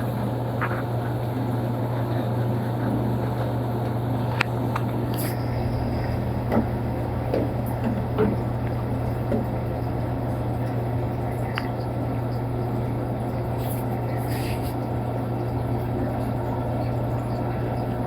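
Panasonic washing machine running its blanket cycle: a steady low hum under an even wash of noise, with a few light clicks and knocks in the first half.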